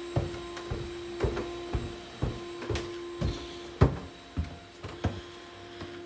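Footsteps going down a carpeted staircase, about two steps a second, over a steady hum.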